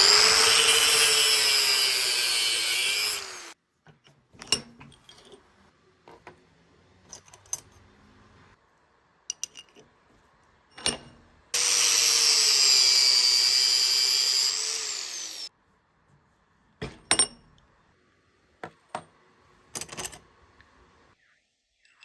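An electric power tool running on steel in two bursts of about four seconds each, its pitch sagging and recovering under load. The bursts are at the start and about halfway through, and both stop abruptly. Between them and afterwards come scattered metallic clicks and knocks as the steel bits are handled.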